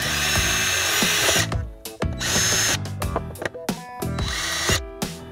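Cordless impact driver with a small twist bit drilling pilot holes through 2-inch PVC pipe. It runs in three bursts, the first about a second and a half long, and its motor whine rises as each burst starts. Background music plays underneath.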